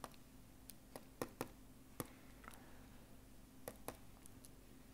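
Near silence in a small room, broken by about nine light clicks scattered irregularly over the few seconds, over a faint steady hum.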